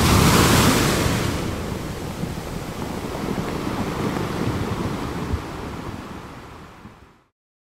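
Ocean surf washing, loudest and hissiest at the start, then a steadier, deeper wash that fades away shortly before the end.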